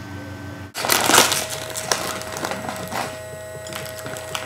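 A low hum, then loud crinkling and crackling close to the microphone about a second in, as hands handle a bowl and what looks like a wrapper, followed by irregular small clicks and rustles.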